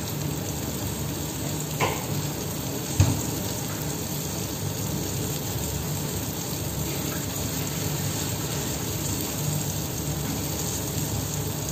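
Eggplant slices shallow-frying in oil in a steel pan, a steady sizzle, with two short knocks about two and three seconds in.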